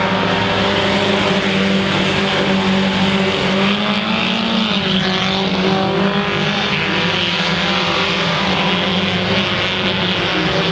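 Engines of several mini stock race cars running at racing speed, a steady blend of engine notes with one car's note rising and falling about four seconds in.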